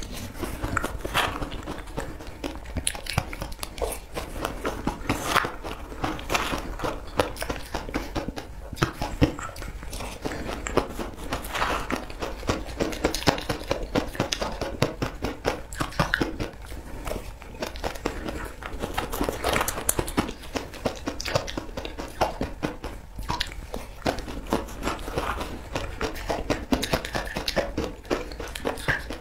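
A person biting and chewing mouthfuls of frozen shaved ice, with a dense run of crisp crunches and crackles.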